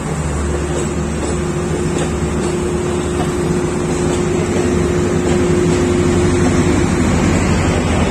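Sri Lanka Railways Class S13 diesel multiple unit rolling past, a steady diesel drone and rumble with a held hum that fades out about seven seconds in, growing slightly louder toward the end.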